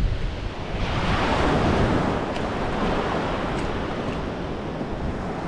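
Surf washing up the beach, with wind buffeting the microphone; a wave swells in about a second in and slowly eases off.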